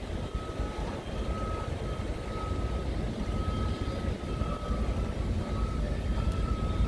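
A construction vehicle's reversing alarm beeping, a single high tone about once a second, over a steady low rumble.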